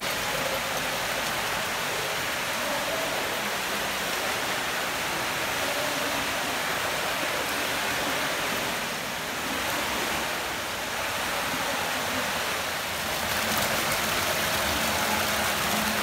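Hot-spring water pouring steadily from taps into marble bath basins and from stone spouts into a pool: an even rushing hiss that grows a little louder near the end.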